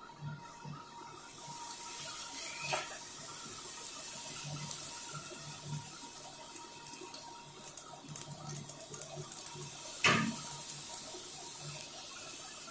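Semolina puris sizzling steadily as they deep-fry in hot oil, the hiss swelling about a second in as they go into the pan. Two sharp knocks stand out, the louder one near the end, as the spatula works the puris in the kadai.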